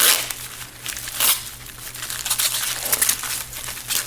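Plastic wrapping crinkling and tearing as it is pulled open by hand, with loud bursts at the start and about a second in. A steady low hum runs underneath.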